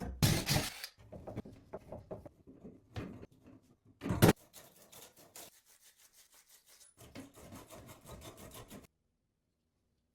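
Rasping and scraping of a tool working on wood, with two louder knocks, then a quick run of rapid, even strokes that cuts off abruptly.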